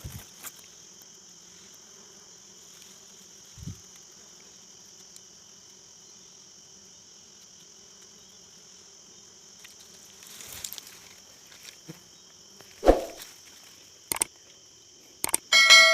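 Steady high-pitched insect chirring, with a faint low hum beneath. There are a few scattered knocks and thumps, and a loud metallic clang that rings on near the end.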